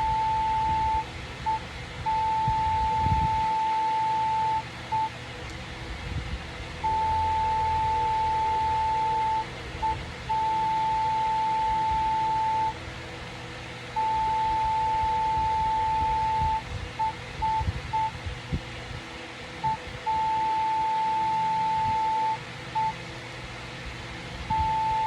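Morse code sent as a single steady tone, with very long dashes and short dots, slowly spelling C, K, B, R and the start of O, part of "quick brown".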